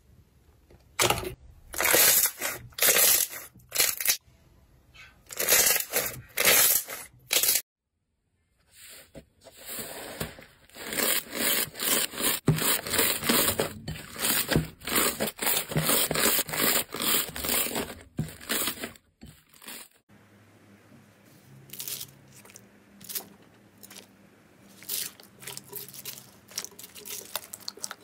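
Hands squishing and kneading slime, with sticky squelches and crackling pops. First come separate bursts about a second apart from glossy yellow slime, then a long dense run of crackling from purple fluffy slime, and after a sudden change, quieter scattered pops from green jelly slime with foam.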